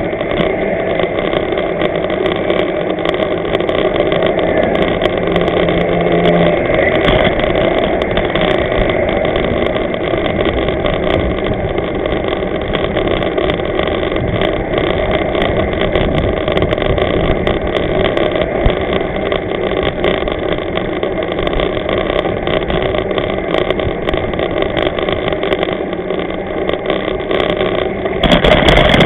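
Riding noise picked up by a bicycle-mounted camera: bike tyres running over a new bike path strewn with loose small stones, a steady rumble and hiss with scattered small clicks. It gets louder near the end as the bike rolls onto brick paving.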